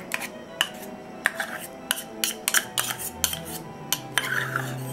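Metal butter knife scraping and clinking against a stainless steel measuring cup as thick caramel sauce is scraped out into a bowl: a string of sharp, irregular clicks. Soft background music runs underneath.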